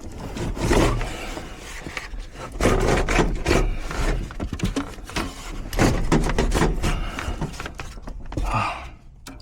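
Irregular scraping, rubbing and knocking of a blower motor being worked loose and pulled out of an air handler's blower assembly, in uneven bursts.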